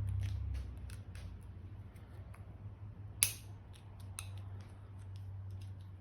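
Small sharp clicks and scrapes of a flathead screwdriver working a plastic handlebar switch housing loose, with one louder snap about three seconds in. A low steady hum runs underneath.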